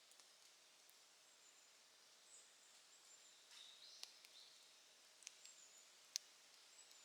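Faint crackling of a wood campfire: a few scattered sharp pops over a soft hiss, the loudest about six seconds in.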